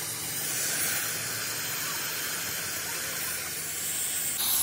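Oxy-fuel gas torch flame hissing steadily as it plays on the steel of a broken crane boom, with a sudden change in the sound near the end.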